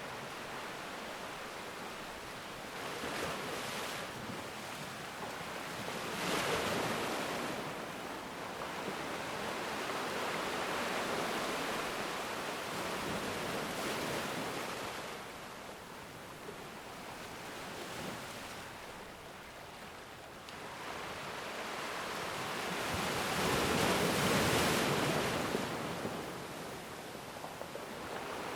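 Ocean waves breaking and washing ashore, a steady surf hiss that swells and fades every few seconds, with the biggest wave coming near the end.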